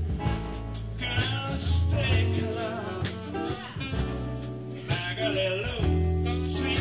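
A live soul band playing: bass and drums under a full band, with singing.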